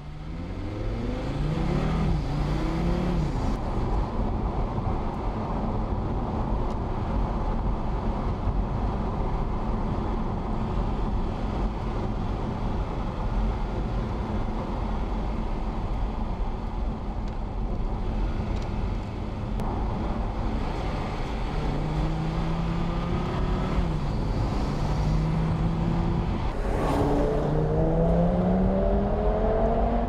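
Audi TT RS's 2.5 TFSI five-cylinder engine accelerating hard, pitch climbing and dropping back at each upshift, over steady tyre and road noise. The gear-by-gear pulls come in the first few seconds and again through the last third, with steadier cruising between.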